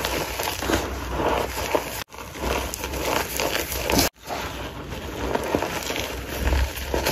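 Soft, powdery blocks of gym chalk and cornstarch being crushed: a dense run of crunchy, crumbly crackles that breaks off abruptly for a moment twice, about two and four seconds in.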